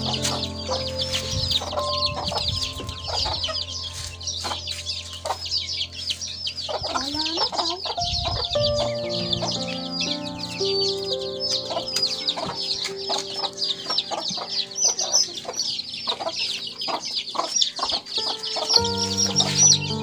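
A brood of chicks peeping constantly, many quick high cheeps overlapping without a break.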